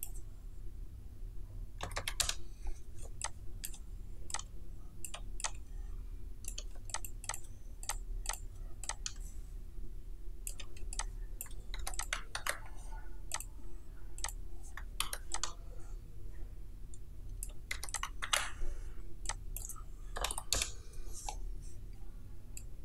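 Computer mouse clicks and keyboard keystrokes at irregular intervals, now and then in quick little runs, over a low steady hum.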